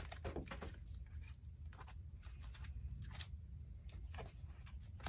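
A deck of tarot or oracle cards being shuffled and handled by hand: faint, irregular soft clicks and rustles of the cards, over a low steady hum.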